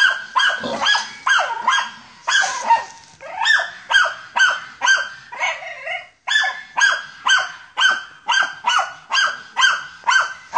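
German hunting terrier (Jagdterrier) barking at a wild boar in quick, even succession, about three sharp barks a second with one short pause about six seconds in: the terrier baying the boar.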